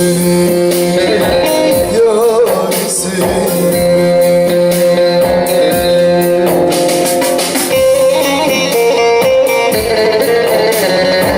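A Turkish folk song (türkü) in the Teke style: plucked string instruments playing, with a man's singing voice.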